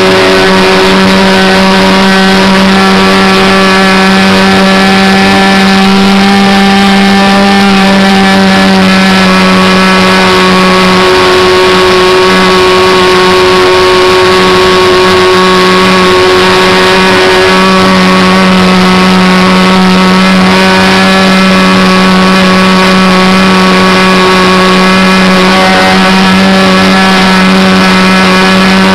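Engine of a radio-controlled model Cessna Skylane 40 running steadily in flight, heard loud and close from a camera mounted under the wing, its pitch holding nearly constant with only small wavers in throttle.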